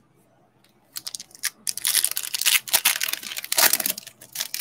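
A foil Donruss football card pack being torn open, its wrapper crinkling and crackling. It starts about a second in.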